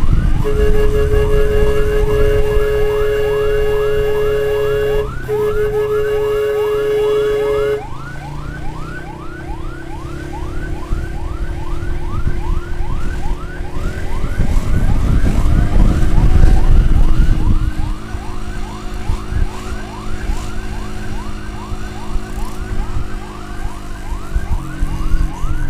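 Electronic siren on a fast yelp, its pitch sweeping up rapidly about three times a second. A steady held tone sounds with it for the first eight seconds and then stops, over a low rumble.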